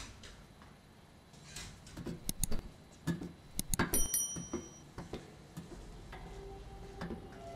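Footsteps of hard-soled boots on a tiled floor, about two sharp steps a second, with a short metallic ring partway through. A low steady tone comes in near the end.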